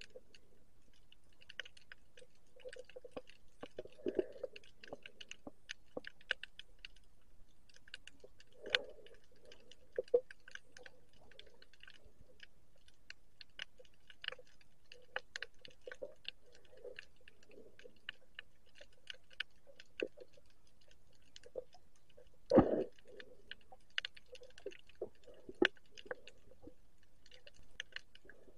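Underwater sound: a steady scatter of sharp clicks and crackles, with a few dull thumps, the loudest about three quarters of the way through.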